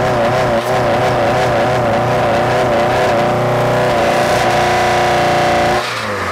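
Chrysler PT Cruiser's four-cylinder engine running with its air filter off while dirt is fed into the open throttle body. Its pitch wavers up and down unevenly at first, then it steadies, and near the end it suddenly stalls and dies.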